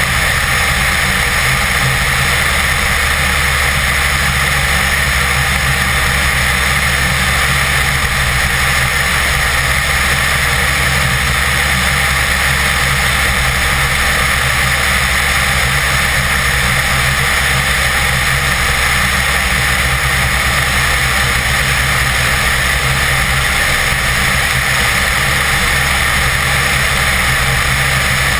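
Bede BD-4 light aircraft in cruise flight: its piston engine and propeller drone steadily without change. Heard through the wing-mounted camera, with a constant rush of wind over it.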